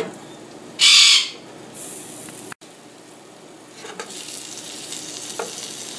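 Baked chicken pieces sizzling in hot juices on a metal baking tray as they are turned over with tongs, with a short loud hiss about a second in and a few light clicks of the tongs against the tray.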